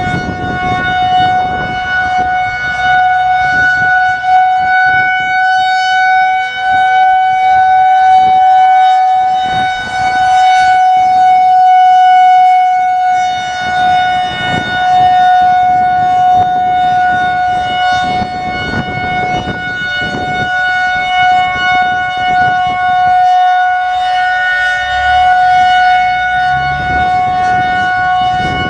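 Federal Signal 2001-130 outdoor warning siren sounding one steady, high tone during a routine test, its loudness swelling and easing slightly.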